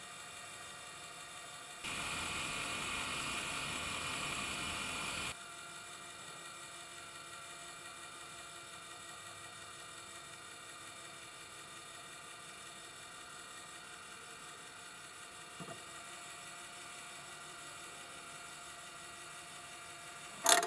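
Steady whir and hum of the sculpture's small brass door mechanism, with a louder, even rushing stretch lasting about three and a half seconds that starts and stops abruptly near the start. A faint click comes later, and a sharp click at the very end.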